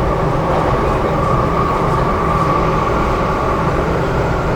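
Interior running noise of an MTR Tsuen Wan Line M-Train: a steady rail rumble with a whine near 1 kHz that swells for a couple of seconds in the middle.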